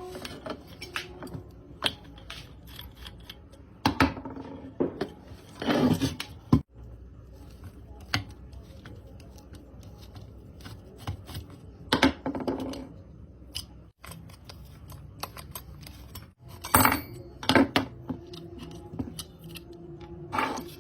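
Small metal tools and parts being handled: scattered clicks, clinks and knocks, with a few louder clanks that ring briefly.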